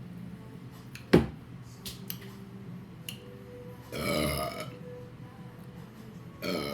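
A woman burping twice: a long burp about four seconds in and a shorter one near the end. A single sharp click comes about a second in.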